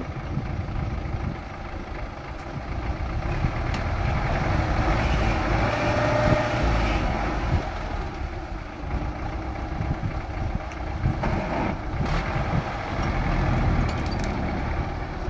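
Tractor engine running steadily, louder for a few seconds in the middle.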